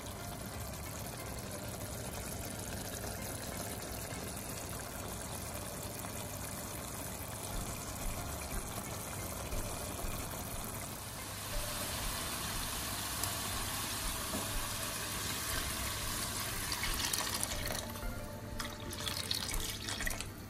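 Mutton curry bubbling and sizzling in its pot, then, from about halfway, a steady stream of mutton stock (yakhni) poured in and splashing, getting louder towards the end.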